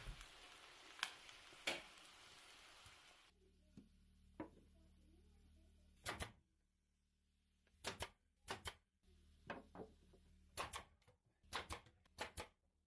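Food sizzling in a cast-iron skillet, with two sharp taps of a wooden spatula. Then a pneumatic nail gun fires about ten sharp shots into wood paneling, several of them in quick pairs.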